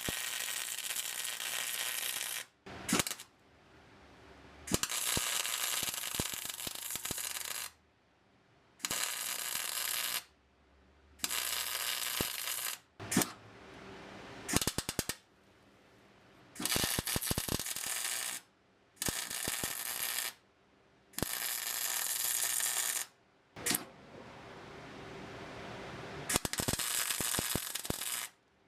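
Welder laying a series of spot-style welds on sheet steel: about a dozen crackling bursts, most one to three seconds long, separated by short pauses.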